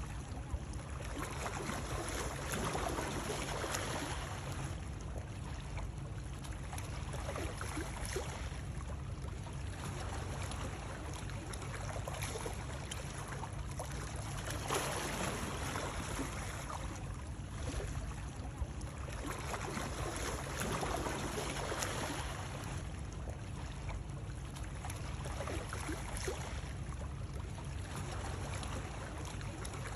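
Continuous splashing, rushing water noise that swells and eases every few seconds, played as soothing white noise for babies.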